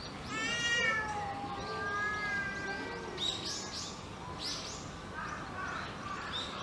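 A loud, high, meow-like call with a falling pitch about half a second in, drawn out into a long held note. Then a run of short, high bird chirps.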